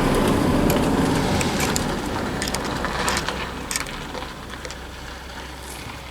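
A gearbox ball bearing being spun and worked by hand to check it, giving a rough rumbling rattle with small clicks that slowly dies away. The bearing feels alright.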